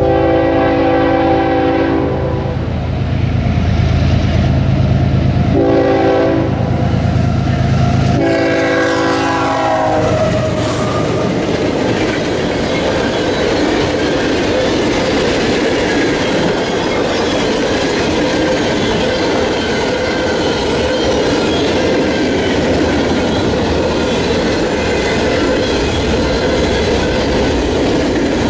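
Diesel freight locomotive sounding its horn in three blasts, a long one, a short one about six seconds in, and a long one that drops in pitch as the locomotive passes, over the engine's low drone. Then a long string of loaded open-top hopper cars rolling by: a steady rumble and clatter of steel wheels on rail.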